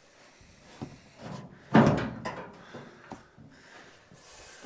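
Steel box side of a stepside truck bed being shifted on its frame: a loud metal bang about two seconds in, with a short ring, among a few lighter knocks and scrapes.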